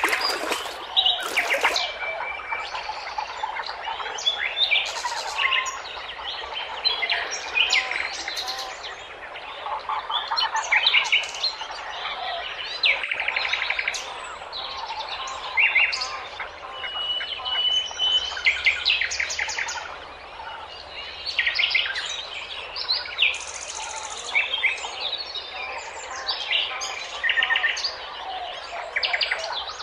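Many birds chirping and calling over one another in a busy chorus of short trills and whistles.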